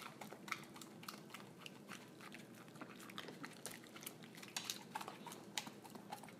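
Dog chewing and biting at a dangling clump of cooked noodles, a faint run of irregular clicks from its mouth.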